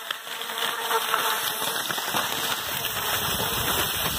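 Skis sliding over packed snow while being towed: a steady crackling hiss, starting up quietly and building within the first second.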